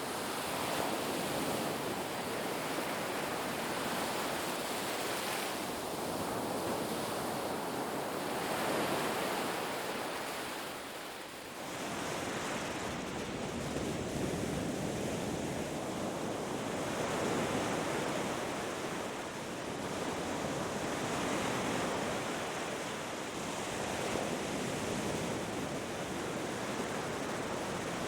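Ocean surf breaking on a beach: a continuous wash of waves that swells and eases every few seconds, with a brief lull about eleven seconds in.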